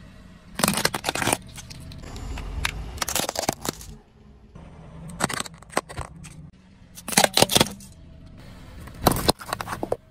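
Car tyre rolling over and crushing plastic candy packaging and candy on asphalt: about five short bursts of cracking and crackling, over a low car engine rumble.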